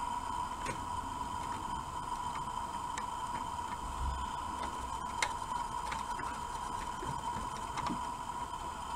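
Faint, irregular clicks and ticks of plastic LEGO parts being handled, over a steady whine.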